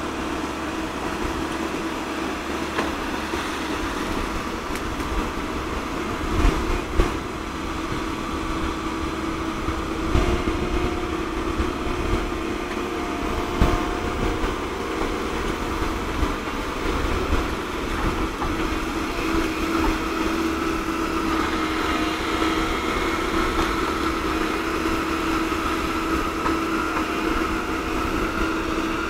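Komatsu PC130-8 excavator's diesel engine and hydraulics running steadily as the bucket works in a ditch, with a few sharp knocks in the first half and a higher whine joining past the middle.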